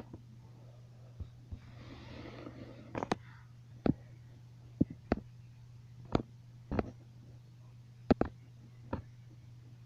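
Hard plastic Schleich toy horse figures tapping and clicking against a surface as they are moved, sharp single and double knocks roughly once a second, over a steady low hum. A soft rustle about two seconds in.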